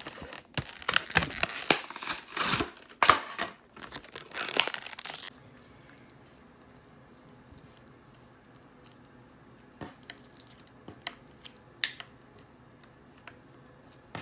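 Plastic packaging crinkling and tearing in quick, crackly strokes for about five seconds, then mostly quiet with a few faint clicks and pops.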